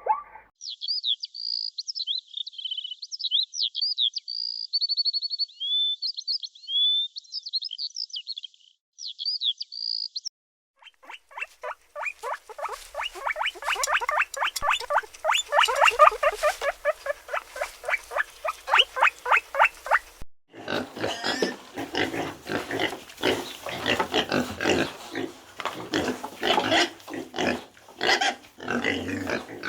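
A run of animal calls. First come about ten seconds of high, quick chirps and squeaks. After a short break, a long stretch of rapid, harsh calls follows, repeating several times a second and turning rougher and noisier about twenty seconds in.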